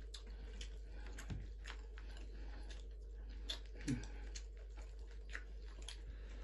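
Eating sounds: soft, scattered clicks and smacks of chewing, with fingers picking through cooked fish. A short low sound about four seconds in.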